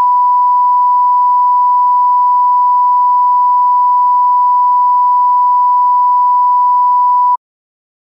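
A steady 1 kHz pure sine test tone, with only faint overtones, that cuts off suddenly near the end.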